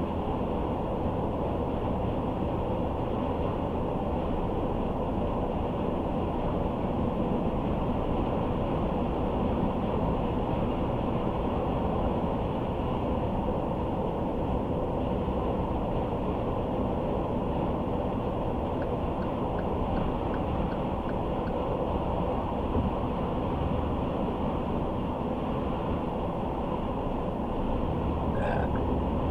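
Steady road and tyre noise of a car driving at a constant speed, with a low drone and no change in pace. A few faint ticks come about two-thirds of the way through, and a brief small sound comes near the end.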